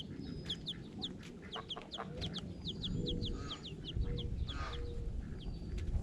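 Baby chicks peeping over and over, short high falling chirps several times a second, with a mother hen's lower clucks in among them.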